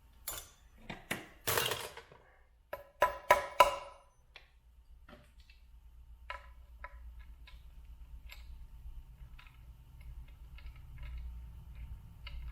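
A hammer tapping a small Torx bit into a stripped screw head to use it as a screw extractor: a quick run of sharp metal-on-metal taps, with a short scrape among them. Faint light clicks follow.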